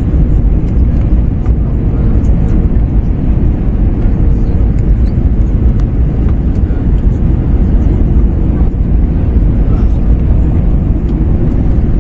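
Steady airliner cabin noise in an Airbus A321-111 on approach: the CFM56 engines and the airflow give a heavy, even low rumble, with a faint steady hum above it.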